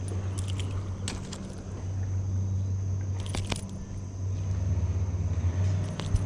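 A steady low rumble, with a few light metallic clicks and jingles from a small inline spinner lure being handled in the fingers.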